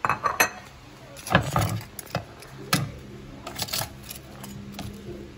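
A ceramic plate set down and metal kitchen tongs clicking and knocking as they grip a whole roast chicken on a wooden cutting board: a string of sharp, irregular clicks and knocks.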